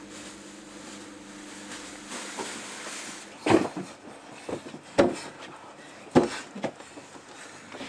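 A steady low hum for about three seconds, then a series of knocks and bumps: three loud ones roughly a second apart, with softer taps in between.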